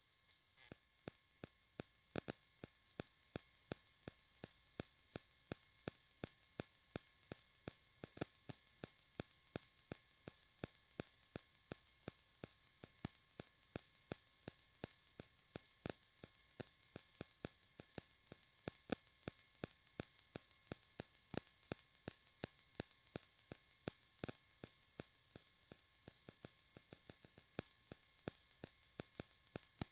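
Near silence: faint electrical hum and hiss from the recording device, broken by regular sharp static clicks about two a second. The phone recorded through a plugged-in headset, so no real ambient sound was captured.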